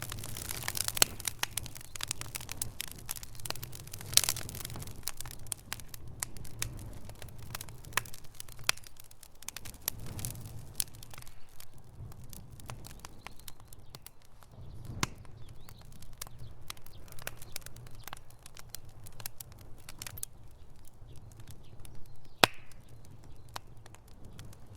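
Campfire burning: wood crackling with irregular sharp pops over a low rumble, with louder pops about four seconds in and near the end.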